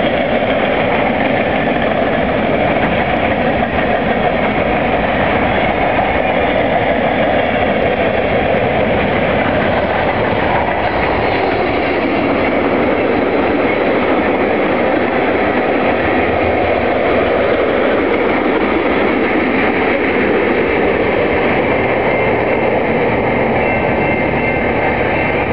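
Freight train cars rolling past close by: a loud, steady rumble and rattle of steel wheels on rail.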